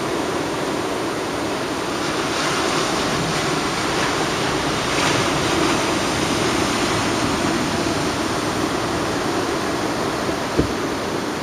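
Pacific Ocean surf breaking on the beach: a steady wash of waves that swells slightly now and then. A brief low bump comes near the end.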